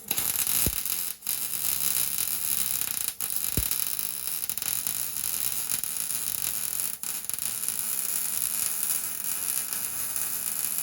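Welding arc crackling steadily while a truck exhaust pipe is welded, with brief breaks about a second, three seconds and seven seconds in.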